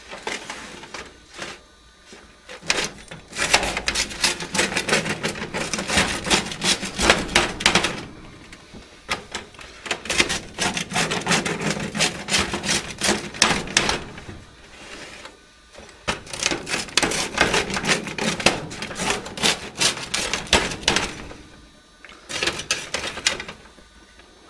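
Pizza cutter wheel rolled through a baked pizza's crisp crust against a metal pizza pan: rapid crunching in four passes of a few seconds each, the last one short.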